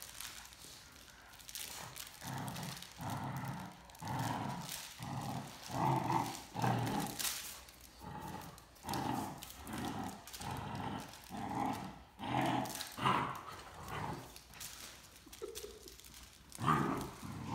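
Great Danes growling in play during a tug of war over a toy, with short growls repeating about one and a half times a second.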